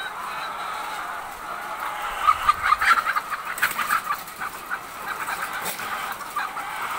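A flock of caged laying hens clucking, with a run of louder, quick clucks from about two seconds in until near the end.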